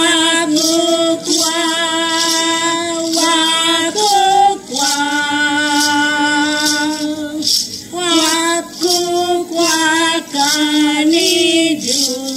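Two women singing a song together into a handheld microphone, with several long held notes. A hand rattle is shaken in time, about twice a second.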